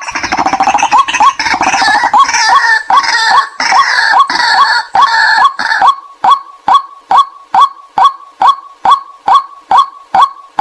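White-breasted waterhen calls played as a lure: a short 'kwak' repeating about twice a second. For the first six seconds or so a harsher, overlapping chorus of calls sounds over it, then the single repeating call carries on alone.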